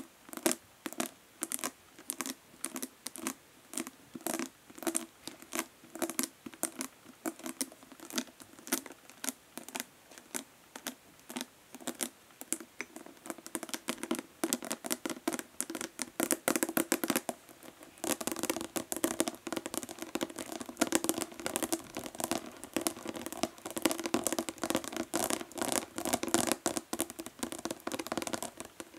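Natural fingernails tapping fast on a hollow plastic body lotion bottle, making sharp clicks with a hollow ring. The taps come a few per second at first, quicken about halfway through and become a dense, rapid flurry for the last stretch.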